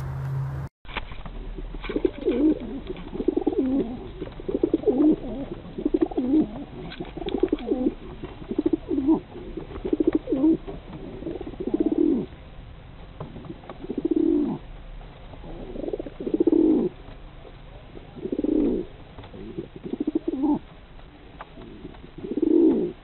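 Fantail pigeons cooing over and over in display, a low rolling coo every second or two, starting about two seconds in.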